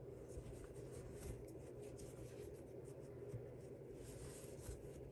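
Faint scratchy rustling of fabric loops rubbing as a loop is woven by hand over and under the warp loops of a potholder loom, in short irregular strokes.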